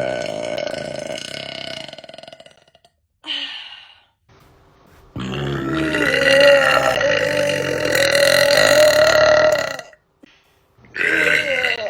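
A young woman belching four times: a burp already sounding at the start that trails off over about two seconds, a short one, then a long drawn-out belch of about five seconds wavering in pitch, and a short one near the end.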